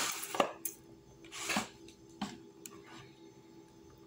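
A few soft rustles and light taps as food containers and plastic bags are handled on a table, over a faint steady hum.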